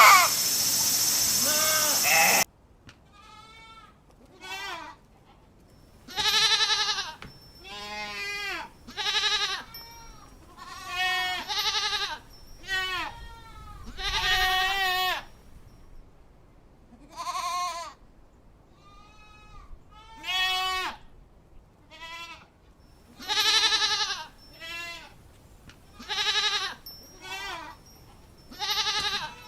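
Goats bleating: a run of separate calls with a wavering pitch, one every second or two. It opens with a louder, noisier recording that cuts off suddenly about two seconds in.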